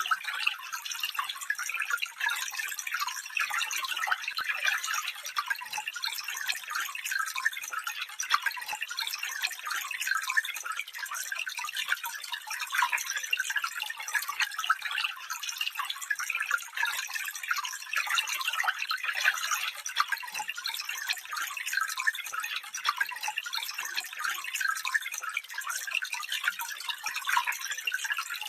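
Stream water trickling and babbling steadily, a bright fizzing splash with no deep rumble.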